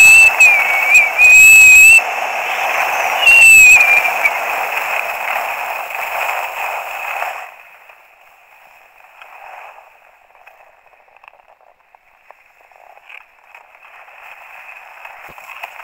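Wind rushing over a helmet-mounted camera's microphone while skiing downhill at speed, loud and distorting, with a wavering whistle on top. About seven seconds in it drops off sharply as the skier slows, leaving a faint hiss.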